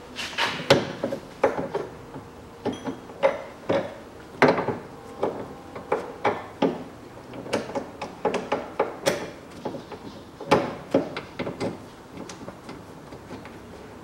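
Hand tools knocking and clanking on the metal of a car's front steering knuckle and lower suspension during reassembly: irregular sharp metal knocks, about one or two a second, thinning out near the end.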